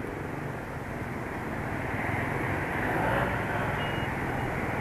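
Motorcycle engine and passing street traffic running steadily, swelling a little about three seconds in.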